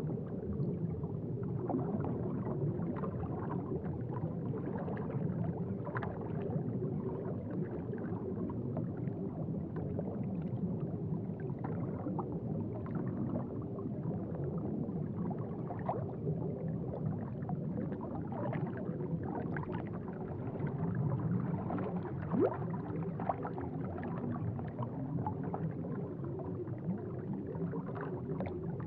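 Aquarium water bubbling and gurgling steadily, a low, continuous churning with small crackling pops of bubbles through it.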